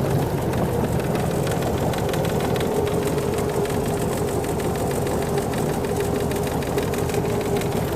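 120 hp MerCruiser sterndrive engine of a 1976 Starcraft Holiday runstabout boat running steadily under way, at a constant pitch.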